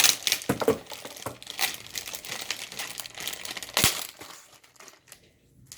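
Plastic packaging crinkling and rustling as a slime kit is unpacked, with sharp clicks and crackles, the loudest near the start and just before four seconds in.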